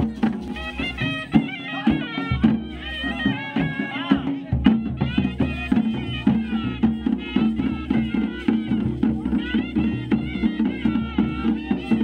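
Traditional Himachali folk music: a wind instrument plays a wavering, ornamented melody over a steady low drone and a regular drumbeat.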